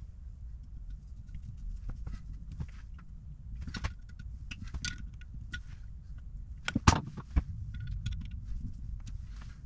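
A screwdriver clicking and scraping against the metal of a Zenith 33 VN carburettor as the small throttle-plate screws are driven into the throttle shaft, with a few sharper knocks about seven seconds in.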